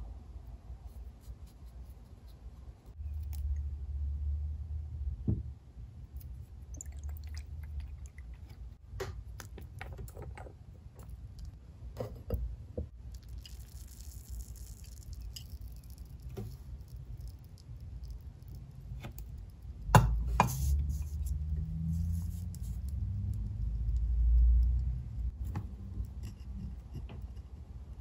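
Desk-top crafting handling sounds: a glass dip pen and a glass ink bottle being handled, with scattered small clicks and taps, a short scratchy patch, and low bumps against the desk, the sharpest click about twenty seconds in.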